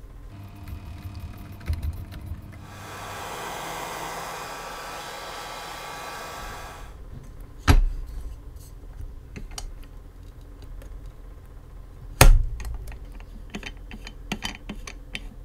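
Handling of a metal phone-opening jig: small clicks and taps as parts are set and the clamp is fitted, with two sharp metal knocks, one about halfway through and another a few seconds later. Near the start a steady whirring hiss runs for about four seconds, then stops.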